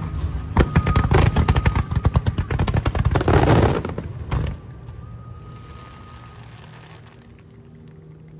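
Fireworks bursting in a rapid string of sharp bangs and crackles for about four seconds, then one last bang. After that comes a fading crackle as the stars burn out.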